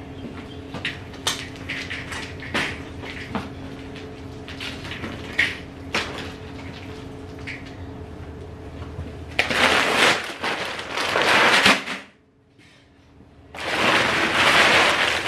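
Steel-mesh garden cart rattling and clicking as it is rolled across concrete, over a faint steady hum. Then a large feed bag is picked up and handled with a loud crinkling rustle, in two spells with a brief silent gap between them.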